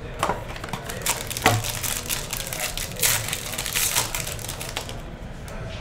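Hands opening a trading-card box and tearing open the foil wrapper inside: a rapid run of crinkling and crackling foil that dies down about five seconds in.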